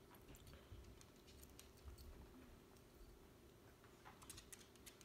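Near silence: room tone with a faint steady hum and scattered faint small clicks, a few more of them about four seconds in.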